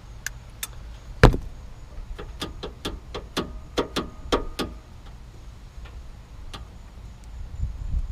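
About a dozen sharp metallic clicks and taps, unevenly spaced over roughly four seconds, some with a short ring; the loudest comes about a second in. A low wind rumble on the microphone runs underneath.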